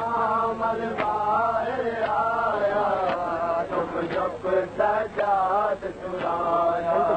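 A man reciting a noha, a chanted Urdu lament, in long wavering held notes, with a sharp beat keeping time about once a second.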